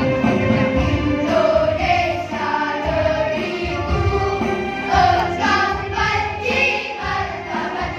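Elementary-school girls' choir singing a song together, voices holding and gliding between notes.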